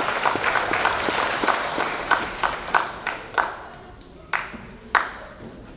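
Audience applause dying away, thinning to a few last scattered claps near the end.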